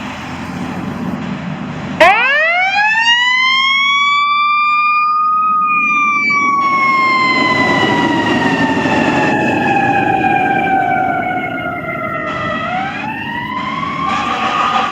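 Fire engine siren starting suddenly about two seconds in, rising steeply in pitch, then falling slowly for several seconds and rising again near the end, over the low rumble of the truck on the road.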